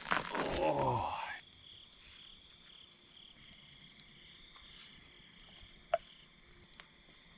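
Night insects chirping: a faint steady high trill with small chirps about twice a second. A short human voice sound comes in the first second or so, and there is one light tap about six seconds in.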